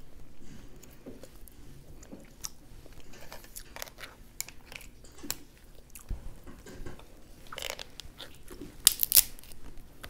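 Snow crab leg shells being cracked and pulled apart by hand: scattered clicks and snaps of shell with soft chewing. The loudest are two sharp cracks close together about nine seconds in.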